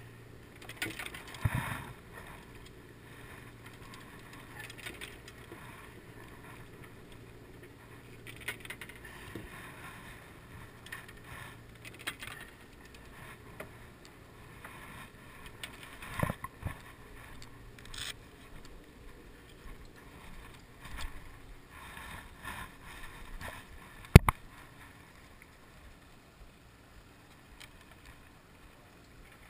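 Scattered knocks and rattles of fishing rods being handled in a boat's rod rack, over a low steady hum from the boat that fades out about halfway through. One sharp click about three-quarters of the way through is the loudest sound.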